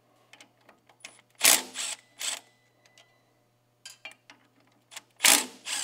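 Socket tool on an extension working the U-joint bolts loose: two short, loud bursts of tool noise, about a second and a half in and again near the end, with small metallic clicks between.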